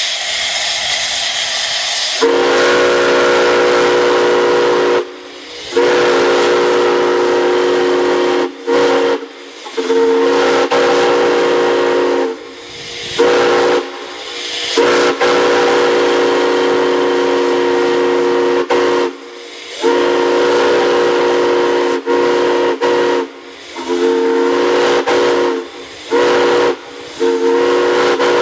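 Multi-chime steam whistle blown in a series of long and short blasts, several notes sounding together as one chord. Steam hisses before the first blast, about two seconds in.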